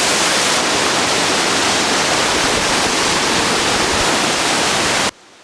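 Large waterfall pouring: a loud, steady rush of falling water that cuts off abruptly near the end.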